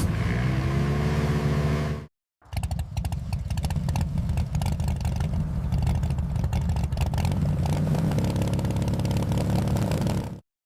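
Motorcycle engine sound effect: about two seconds of engine, a brief cut to silence, then a steady-running engine with a fast clatter, stopping abruptly near the end.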